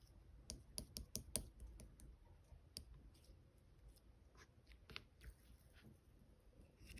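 Strawberry-jam slime being pressed and pulled by hand, giving faint sticky clicks and small pops: a quick run of them about a second in, then scattered single ones.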